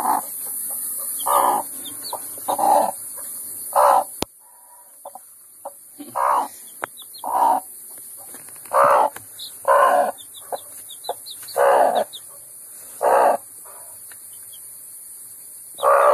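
Broody hen clucking in the nest box, one short cluck about every second, with a newly hatched chick's faint high peeps in between.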